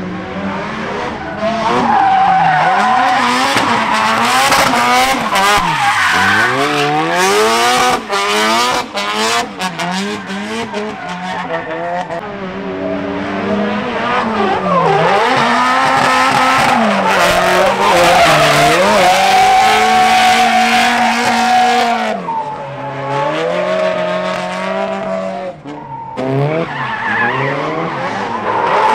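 Drift cars sliding on track: engines revving hard, the pitch rising and falling with every throttle stab and gear change, over steady tyre squeal. A brief lull comes a few seconds before the end.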